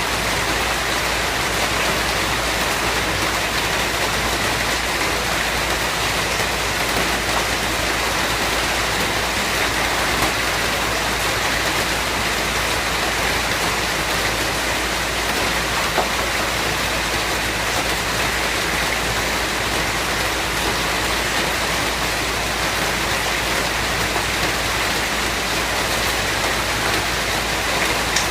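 Steady rain falling, a dense even hiss of drops that holds the same level throughout.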